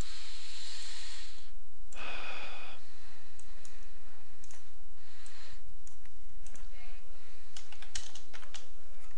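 Stylus scratching on a tablet screen as digits are written, then irregular clicks of computer keys and a mouse, over a steady low electrical hum.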